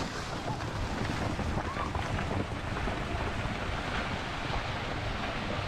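Steady rushing noise of wind buffeting a camera microphone outdoors, even and unbroken with no distinct impacts.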